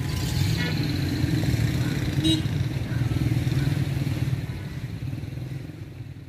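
Steady low engine rumble of road traffic, like a motorcycle running, with two brief high chirps. The sound fades out over the last two seconds.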